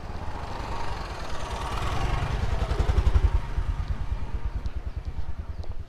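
An engine running close by, its low, even pulsing growing louder to a peak about three seconds in and then easing off.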